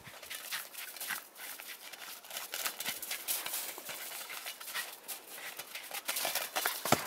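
Quick, irregular crunching of dry, frozen snow as a Jack Russell terrier scrambles after a football through it, with one sharper crunch near the end.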